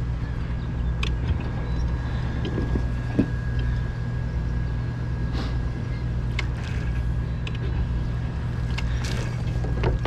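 Steady low mechanical hum of a docked yacht's onboard machinery running, with a faint steady whine above it. A few light clicks and knocks come from dock lines being handled on the swim platform.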